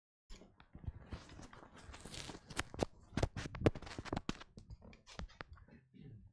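A run of irregular clicks, knocks and rustling from a person moving about and handling things close to the microphone, starting suddenly and loudest about two to four seconds in.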